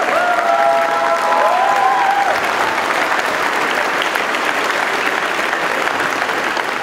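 Large audience applauding steadily, with a few long, high-pitched calls from the crowd over it in the first couple of seconds.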